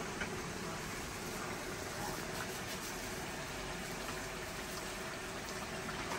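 Water boiling steadily in a large steel pot, a continuous bubbling hiss with a few faint ticks.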